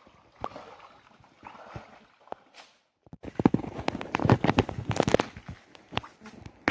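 A cast net being handled by hand on a stony riverbank. From about three seconds in there is a dense run of clicks, rattles and rustles from the net's weights and mesh.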